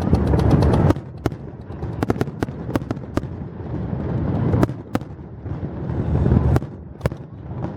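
Aerial fireworks bursting: a run of sharp, irregular bangs and crackles over a continuous low rumble from the shells, swelling and easing several times.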